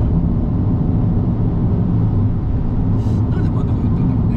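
Steady low drone of a car driving at expressway speed, engine and tyre noise heard from inside the cabin.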